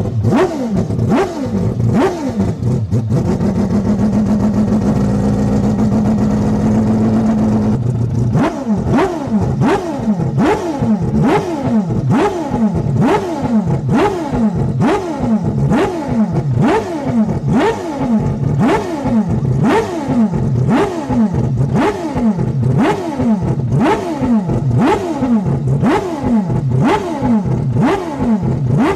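Mazda 787B's four-rotor R26B Wankel rotary engine running and being blipped by hand, the pitch rising and falling sharply about once a second. A few seconds in, the revs are held steady for about five seconds before the regular blipping resumes.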